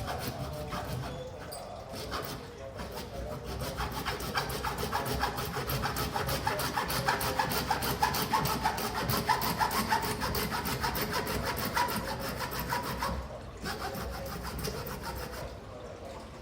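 A run of rapid rasping strokes from hand work on a workpiece, building about four seconds in and easing off about thirteen seconds in.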